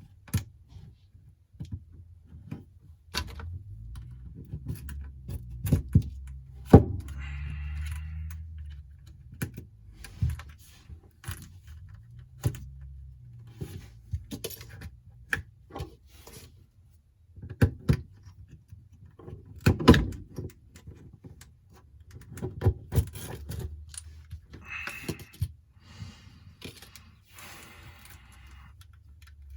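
Small tools and phone parts being handled during an iPhone screen repair: scattered sharp clicks, taps and knocks, with a few short scraping passes.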